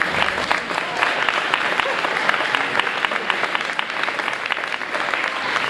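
Audience applauding, with voices among the clapping.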